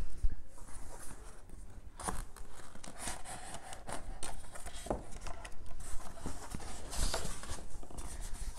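Cardboard box flaps and a foam packing insert being handled and pulled out: irregular rustling and scraping with scattered sharp clicks and knocks.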